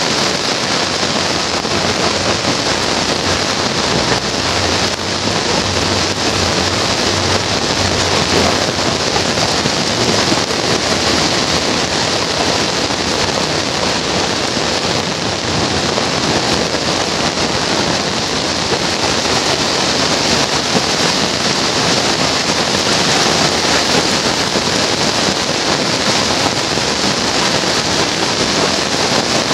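Heavy rain falling on paved roads and roofs: a steady, dense hiss that stays even throughout.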